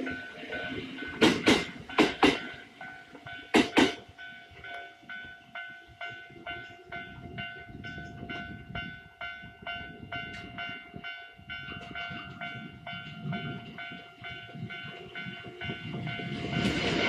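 Japanese level-crossing alarm ringing with an even, repeating electronic clang, while in the first few seconds a Kintetsu electric train's wheels clack over the rail joints in pairs, bogie by bogie, as it passes the crossing. Train noise builds again near the end.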